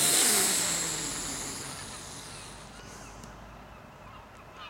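A person making an explosion noise with the mouth, imitating the Death Star blowing up: a loud hissing rush that fades away over about three seconds.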